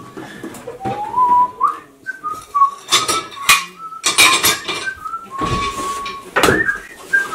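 A person whistling a melody in one thin, pure tone, with clinks and clatters of dishes and cutlery breaking in several times, mostly around the middle.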